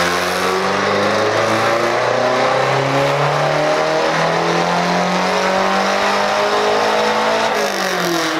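Mazdaspeed3's turbocharged 2.3-litre four-cylinder, running through a straight-pipe exhaust, at full throttle on a chassis dyno. The revs climb steadily through the pull, then fall away quickly near the end as the throttle is lifted.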